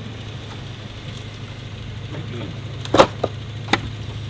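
A 4x4's engine idling steadily. About three seconds in there is one sharp crack, then two smaller snaps, as the tire's weight comes onto an orange plastic recovery board bridged over a stack of wood and rocks. The board bows under the load but does not break.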